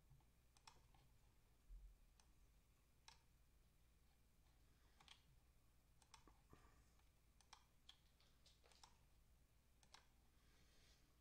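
Near silence: room tone with a low steady hum and about a dozen faint, short clicks at irregular intervals.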